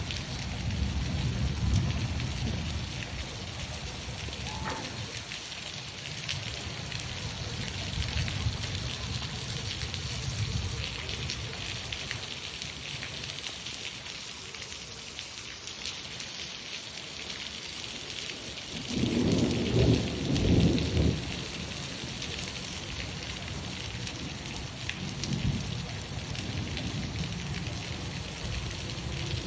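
Steady rain falling, with thunder rumbling low several times; the loudest clap of thunder comes about twenty seconds in.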